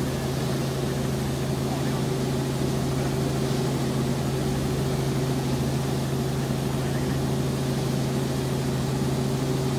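Helicopter engine and rotor noise inside the cabin in flight: a steady drone with a constant low hum and an even rushing noise over it, unchanging in pitch or level.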